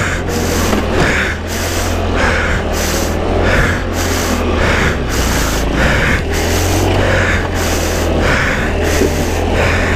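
Chinese scooter running across snow, with a steady engine note and wind noise. A hissing puff repeats about every two-thirds of a second over it.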